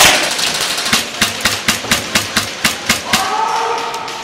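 Airsoft rifle firing a quick string of about ten sharp single shots, roughly four or five a second, starting about a second in and stopping near the three-second mark. A loud knock comes at the very start.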